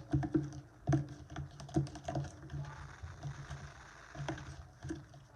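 A big spoon stirring glue and slime activator in a bowl: irregular clicks and taps of the spoon against the bowl as the mixture starts to thicken.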